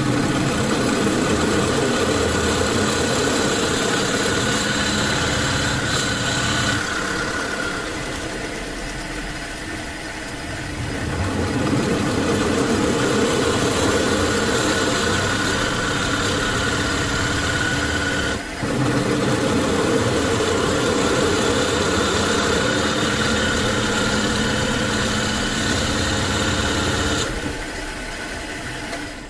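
Small benchtop metal lathe running, turning a square wooden block while a tool bit cuts a round recess into its face. The noise is steady, eases off for a few seconds twice, and has a brief break about two-thirds of the way through.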